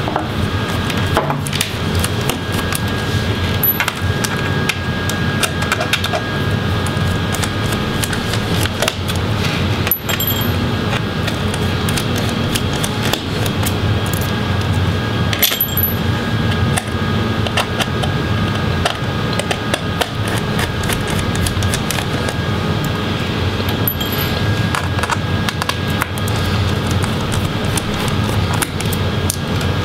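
Small Torx T5 screwdriver clicking and scraping at intervals as it turns out the screws of the laptop's metal bottom cover, over a steady background hum.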